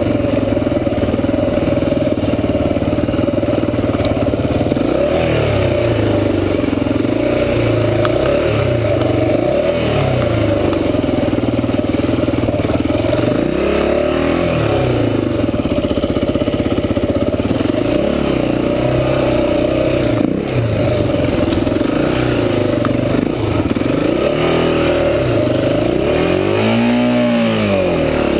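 Honda XR400 four-stroke single-cylinder dirt bike engine running hard on a trail ride, revving up and down over and over as the throttle opens and closes, with the sharpest rise and fall near the end.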